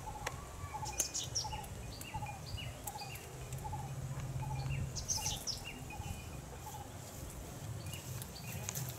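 Birds calling: one bird repeats a short note about twice a second, with other birds chirping higher above it. A low hum comes and goes underneath, and there are a few faint clicks.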